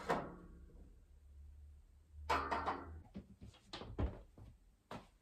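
Quiet handling knocks and rustles as a phone camera is set down, then clicks and a thump about four seconds in as a wardrobe door is moved by its handle, with one more click near the end.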